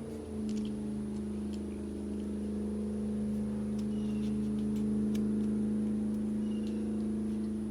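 A steady, even mechanical hum, like an engine or motor running. A few short, high chirps sound above it.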